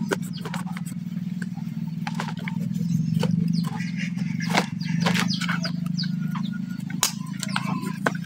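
A utility knife blade paring the cut face of a sancang bonsai stem: a run of short, irregular scraping clicks as thin shavings come off the wood. A steady low hum runs underneath.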